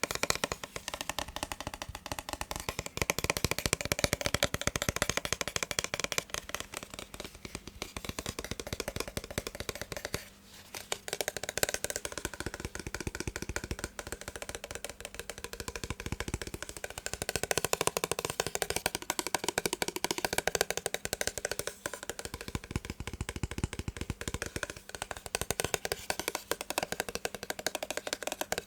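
Fast, continuous tapping on the casing of a massage gun, many light clicky taps a second, with a brief pause about ten seconds in.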